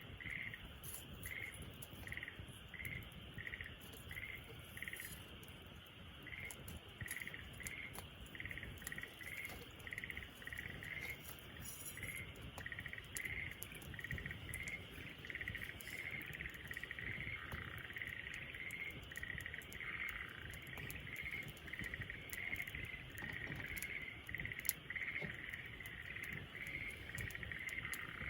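Wood fire crackling with scattered sharp pops over a low rumble. A high chirping call repeats steadily alongside it, a little faster than once a second.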